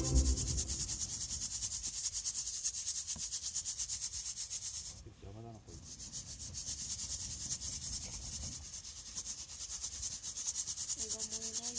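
A fast, even, high-pitched rasping pulse, about six or seven a second, typical of insects chirping; it fades briefly about five seconds in.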